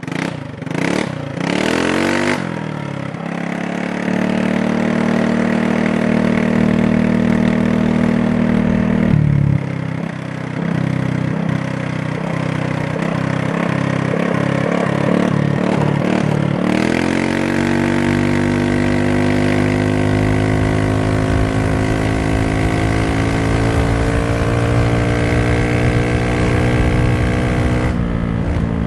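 GY6 150cc scooter's single-cylinder four-stroke engine under way. Its revs climb in the first few seconds and hold level. A little past halfway it is opened up into a hard pull, and the engine note keeps rising as speed builds, with wind rushing over the microphone.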